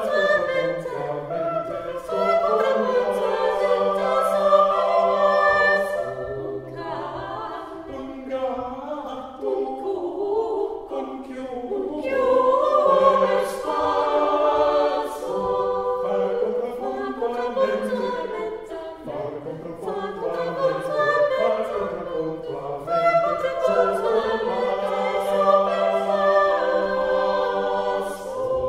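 A small mixed choir of women's and men's voices singing a cappella in several parts over a low bass line, with short breaks between phrases.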